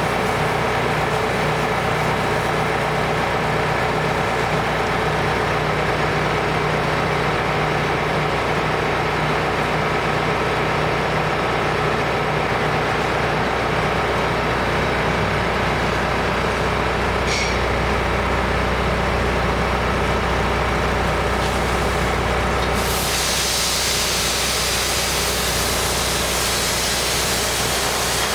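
Steel pan conveyor running while it carries wood flakes and chips: a steady mechanical hum with an even rushing noise. A brighter hiss comes in about two-thirds of the way through and holds.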